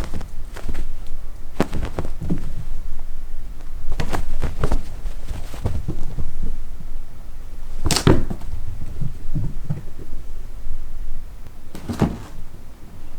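Irregular knocks and thumps over a low rumble as cats play and tussle, with the sharpest knocks about eight and twelve seconds in.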